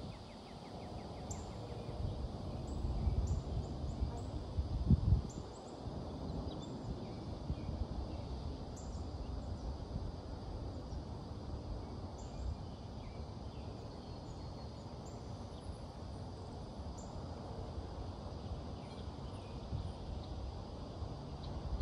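Hurricane wind rushing steadily and buffeting the microphone in gusts, strongest about three to five seconds in, with scattered short high chirps of birds.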